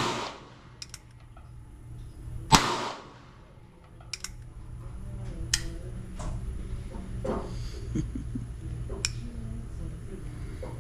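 Two handgun shots about two and a half seconds apart, each a sharp crack with a short ringing tail, followed by several fainter sharp pops and clicks over a steady low rumble.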